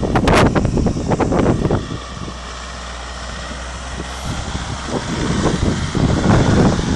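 Mitsubishi L200 pickup's engine running as it drives past close by, growing louder from about five seconds in. Wind gusts buffet the microphone in the first two seconds.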